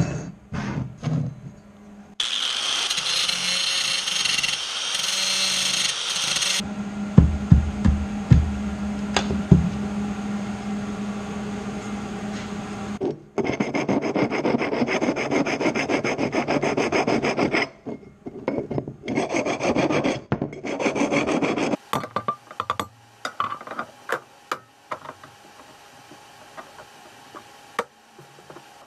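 Harbor Freight angle grinder running and grinding steel tubing for a few seconds, then running on more lightly before stopping. After that a hand file rasps on the end of a square steel tube in quick strokes, followed by scattered clicks of metal pieces being handled.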